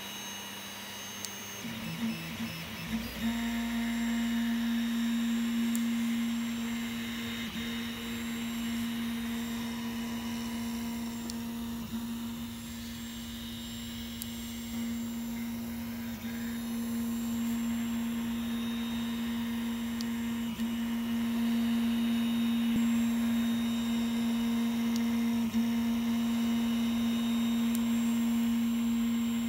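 Tevo Tornado 3D printer at work on a long bridging print. Its stepper motors whine in short, broken moves for about three seconds, then hold one steady pitch through long back-and-forth passes, with a brief dip every four to five seconds as the print head reverses.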